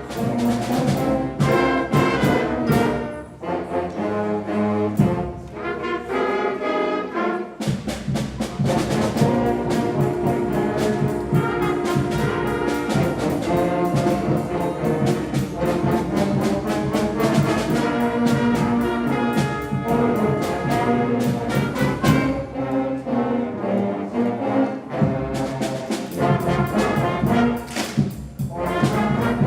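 School concert band playing a brass-led piece with a steady percussion beat. The trombones and baritones carry the melody.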